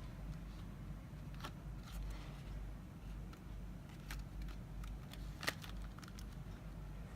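Chocolate bar wrapper being handled and unwrapped: scattered crinkles and crackles, with one sharp crackle about five and a half seconds in, over a steady low hum.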